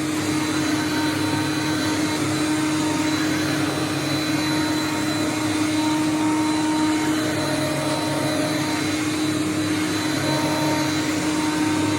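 Hoover Conquest upright vacuum cleaner running steadily: a constant motor hum with a faint high whine over a rushing airflow.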